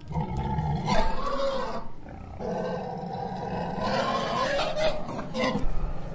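Tiger growl sound effect: one growl lasting nearly two seconds, then a longer one of about three seconds.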